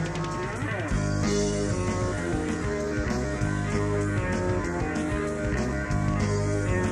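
A rock band playing, with electric guitar over bass, and a gliding pitch about half a second in.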